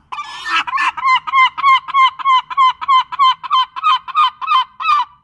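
Gull calling: a harsher drawn-out call at first, then a rapid, even series of short yelping calls, about four a second.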